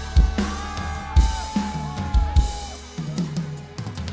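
Live pop band music with a steady kick-drum beat under a held, gliding melodic line. The beat thins out about three seconds in.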